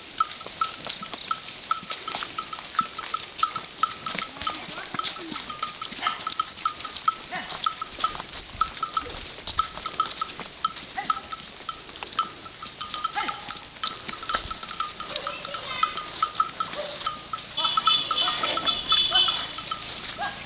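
A bell on a walking Gir bull's neck clanking steadily, about three strokes a second, in step with its stride. Near the end a short high-pitched call rises over it.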